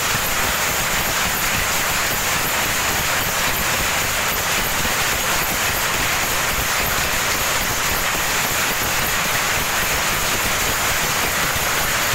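Power loom fitted with a lappet attachment running, with other looms in the weaving shed around it: a loud, steady mechanical clatter.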